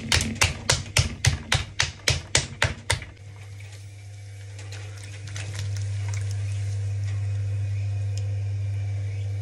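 Hands slapping a lump of blended wild raw clay and porcelain clay on a potter's wheel head, about four slaps a second for the first three seconds. After that only the electric wheel's motor hum and the rub of wet hands on the clay can be heard, the hum growing louder about five seconds in.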